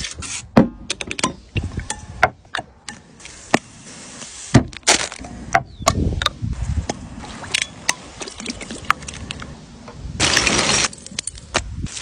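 Food-preparation sounds: a steel knife tapping and scraping on a wooden chopping board and a glass jar being handled, a string of sharp clicks and knocks. A burst of rustling noise lasts about a second, a little after ten seconds in.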